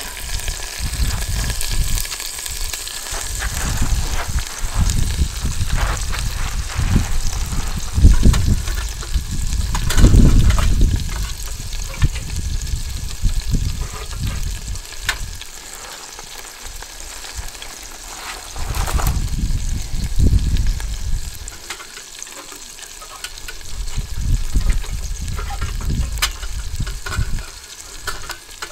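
Chicken thighs sizzling in hot olive oil in a cast-iron Dutch oven over a wood-fired rocket stove: a steady frying hiss. Irregular low rumbles come and go over it, loudest about a third of the way in, with a few sharp clicks as the stove's fuel door is tended.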